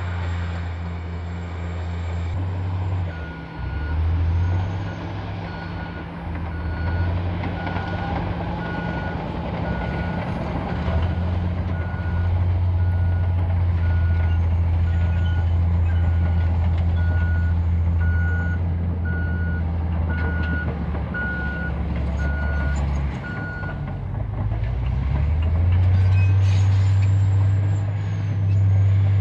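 Caterpillar D10T bulldozer's V12 diesel engine running steadily, with a reversing alarm beeping at an even pace from about three seconds in until near the end.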